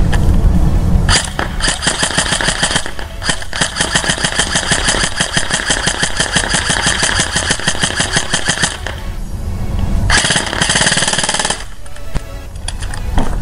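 KWA CQR Mod 2 airsoft electric rifle firing on full auto: a rapid rattle of shots in a long burst of about seven seconds, with a brief break near its start, then a shorter burst of about a second and a half near the end. A low rumble lies under it when the gun is silent.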